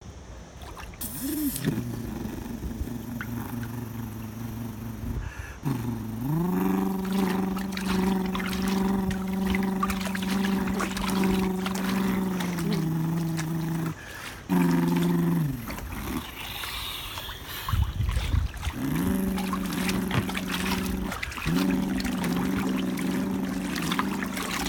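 A man imitating a speedboat engine with his voice: several long, droning motor hums that glide up in pitch as each starts and drop as it ends, with water sloshing and splashing in a hot tub.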